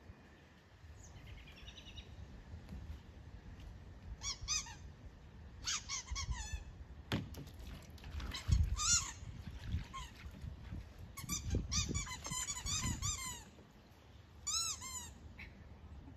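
Rubber squeaky toy being chewed by a springer spaniel, squeaking in quick runs of several squeaks at a time, with a few low thumps among them.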